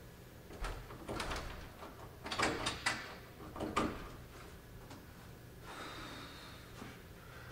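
A door handle being turned and rattled several times in quick clusters, the latch clicking, while the door stays shut.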